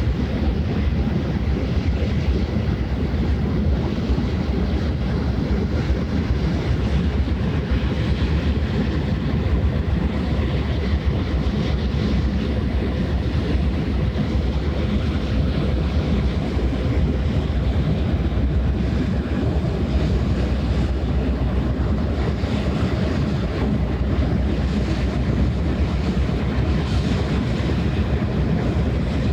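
Steady low rumble of a passing ship's engine, mixed with wind buffeting the microphone and water washing. A faint steady hum sits over it and fades out about halfway through.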